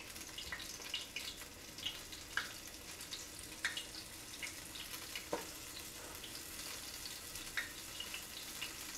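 Cracker-crumb-coated trout fillets frying in hot oil in a frying pan: a steady sizzle with scattered crackles and pops.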